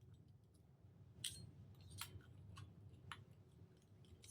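A handful of faint, sharp metallic clicks and ticks, roughly one every half second: small cylinder head bolts being handled and run in by hand on a Traxxas 3.3 nitro engine.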